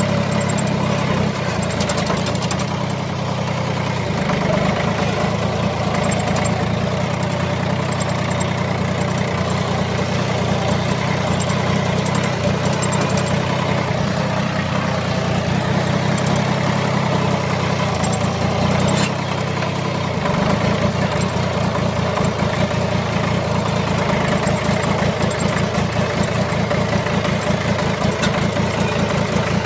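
John Deere tractor's diesel engine running steadily as the tractor drives across rough field ground. The engine sound dips briefly about two-thirds of the way through, then picks up again.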